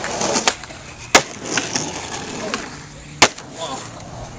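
Skateboard wheels rolling on concrete, with three sharp clacks of the board hitting the ground: pops and landings of tricks.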